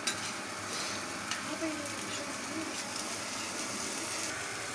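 Egg scramble of onion and tomato frying on a hot flat tawa griddle, a steady sizzle with a few light clicks scattered through it.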